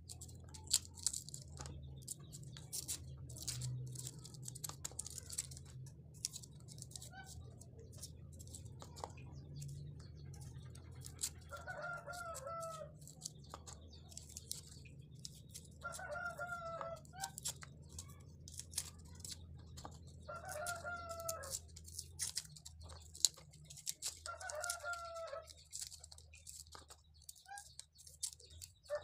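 Small knife peeling shallots on a plastic cutting board: a run of light, irregular clicks and scrapes over a steady low hum. From about twelve seconds in, a short pulsed animal call repeats in the background about every four seconds.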